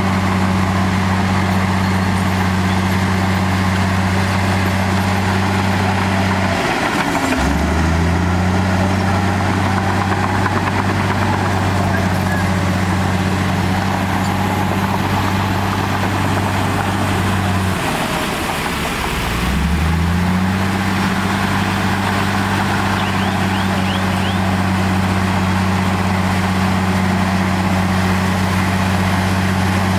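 Heavy earthmoving machine's diesel engine running steadily. Its pitch sags and climbs back twice, about seven seconds in and again around eighteen to twenty seconds in.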